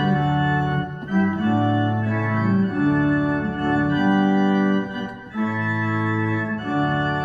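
Hand-built 'Carlos Pro' computer pipe organ playing slow, sustained chords from a hymn book, the chords changing about once a second, with a brief break about five seconds in.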